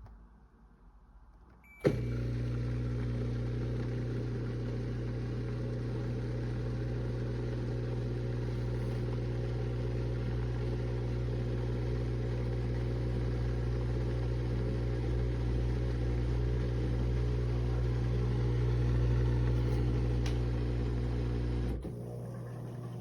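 A countertop mini dishwasher's pump motor switches on with a click and runs with a steady hum. It cuts out about a second before the end, leaving a fainter hum.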